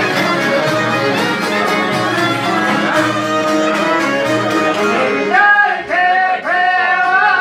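Live folk band playing: violin leading over accordion, long-necked lutes and a frame drum keeping a steady beat. About five seconds in, a man starts singing over the band.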